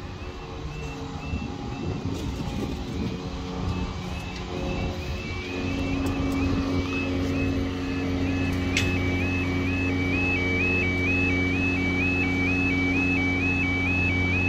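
Level crossing warning alarm sounding a two-tone yodel, stepping between a higher and a lower note about two and a half times a second. It is the warning that a train is approaching and the barriers are coming down. After a click about nine seconds in, the alarm is louder, and a steady low drone runs underneath.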